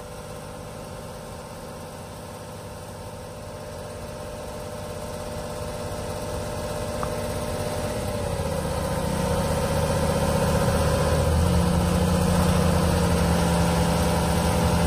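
Volvo A40E articulated dump truck's six-cylinder diesel engine running under load for the hydraulic hoist as the dump body is tipped up and let down, revs rising so that it grows steadily louder for about ten seconds and then holds. A steady higher whine rides over the engine.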